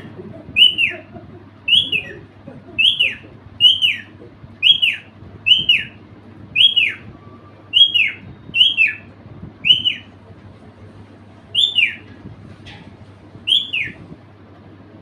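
Pet parrot calling: about a dozen short, high calls, each dropping in pitch, repeated roughly once a second, with a longer pause near the end.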